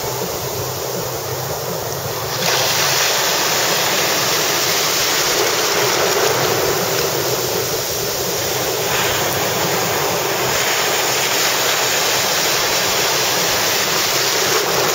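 Surf breaking and washing up the beach, with wind on the microphone; the rush of water gets louder about two seconds in.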